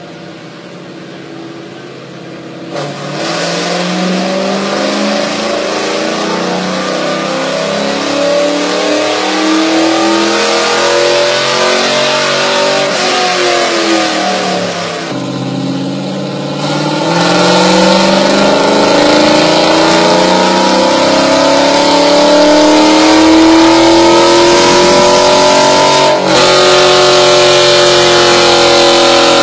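Chevrolet Camaro Z28's LS V8 running on a chassis dyno: it idles for a couple of seconds, then opens up at full throttle with the engine note climbing in pitch. About halfway through it falls back, then climbs again in a second, louder pull.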